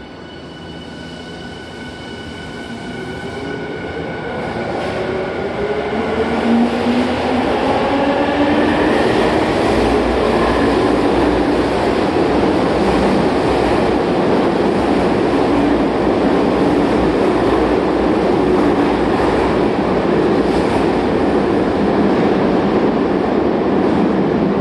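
Tokyu 5050 series electric train pulling away: its motor whine climbs in pitch over about ten seconds as it accelerates, growing louder. Then the train's steady, loud running noise continues as the cars go by.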